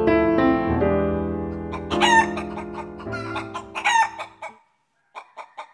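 Piano music fading out while a rooster crows twice, about two seconds in and again near four seconds, followed by short clucking calls near the end.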